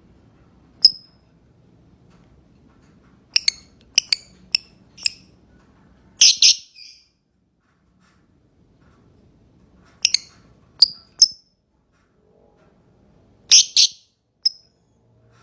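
Lovebird giving short, sharp, shrill chirps, singly and in quick clusters of two to five, with pauses of a second or more between clusters.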